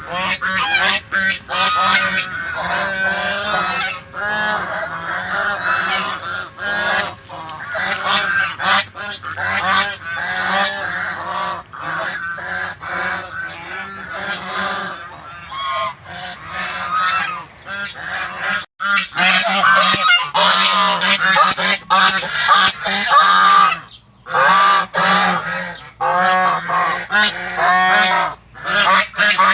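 A flock of domestic geese honking, many calls overlapping almost without a break, with a couple of brief pauses.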